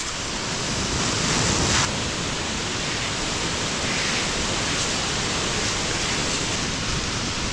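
Garden-hose spray nozzle hissing steadily as its water spray hits a mountain bike's frame, tyre and spokes, rinsing off the soapy bike wash.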